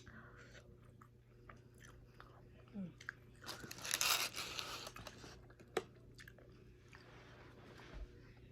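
Close-up eating sounds: a person biting and chewing food, with scattered small clicks and a louder crunchy stretch about four seconds in.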